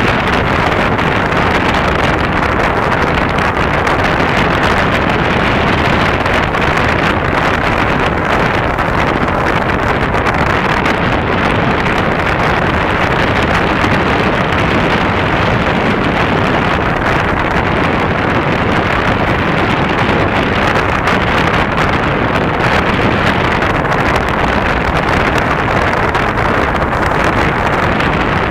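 Steady, even rushing noise of wind and surf on a beach, with no firework bangs heard.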